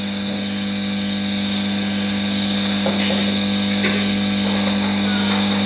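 Steady electrical hum, with a cricket chirping in rapid high-pitched pulses over it. The chirping breaks off for about a second, a little over a second in.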